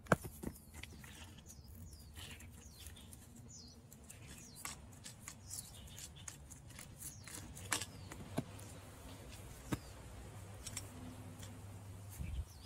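Faint rubbing and scattered small clicks of cotton-gloved hands wiping excess PVC cement off the joints of a grey PVC pipe and handling it against the concrete. A few faint bird chirps are heard.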